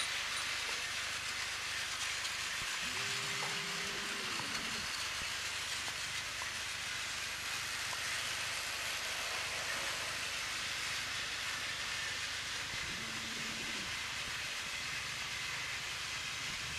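Battery-powered toy train running on plastic track: a steady, even whirring noise, with faint brief tones about three seconds in and again near the thirteenth second.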